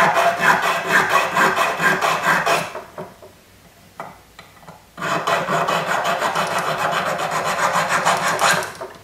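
Small triangular needle file rasping back and forth on a metal strip, cutting a little notch at the back of a snake's head. It goes in quick, even strokes, about five a second, in two bouts with a pause of about two seconds between them.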